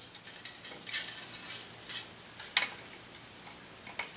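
Small clicks and rustles of a flying clamp being fitted onto a racquet's main string and the string being handled, with a few sharp ticks about a second in, around two and a half seconds in and near the end.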